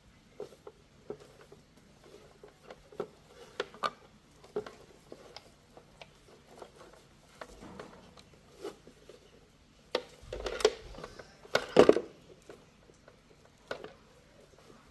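Scattered light clicks and knocks of small objects being handled, with a louder burst of clatter about ten to twelve seconds in.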